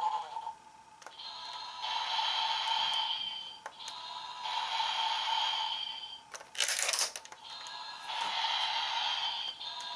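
Dragvisor Zwei toy playing its electronic sound effects and music in three stretches through its small built-in speaker. Partway through there is a sharp plastic clack as its blade flips out.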